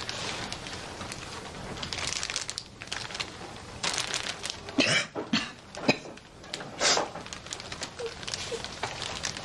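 Clear plastic evidence bag crinkling as a woman handles the jacket inside it, then a few short, sharp breaths and sobs, about a second apart, as she breaks down crying.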